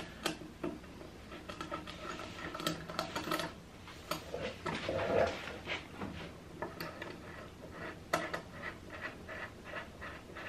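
Light metal clicks and scrapes of a threaded mounting rod being turned by hand into the underside of a sewing-machine flatbed table. A louder muffled knock comes about five seconds in, and a quicker run of small clicks near the end.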